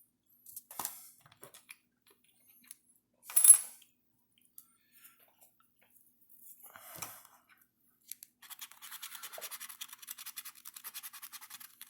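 Handling of a paper scratch-off lottery ticket, with a brief sharp rustle about three and a half seconds in, then from about eight seconds rapid, even scratching strokes as its latex coating is scraped off.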